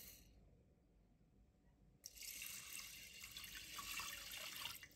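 Water poured into a stainless steel saucepan onto uncooked short-grain rice, a steady splashing stream that starts about two seconds in and stops abruptly just before the end.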